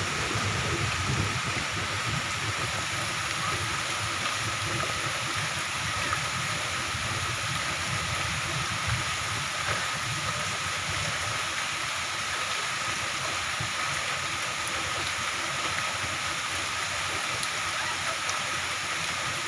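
Moderate to heavy rain pouring steadily, an even, unbroken hiss of falling water.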